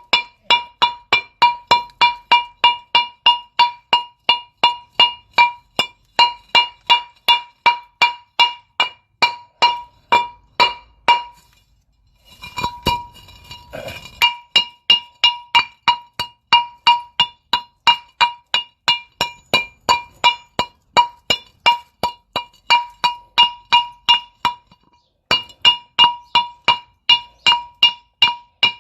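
A hammer striking steel on the front wheel hub of a 2008 Cadillac SRX, about three blows a second, each with a metallic ring, to break loose caked brake dust. The blows stop briefly a little before halfway and pause again shortly before the end.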